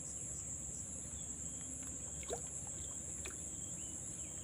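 Steady high-pitched chorus of crickets or other insects, with a low steady background rumble and a faint short chirp about two seconds in.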